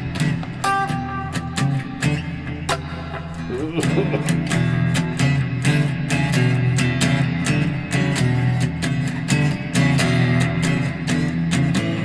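Homemade oak-bodied Stratocaster-style electric guitar played through an amplifier: strummed chords and picked notes in a steady, busy rhythm, with a bent note about four seconds in.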